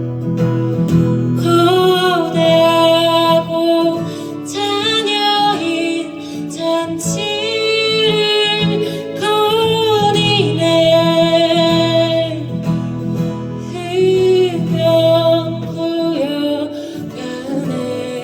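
Live song: a woman singing a melody over acoustic guitar, the voice coming in about a second and a half in.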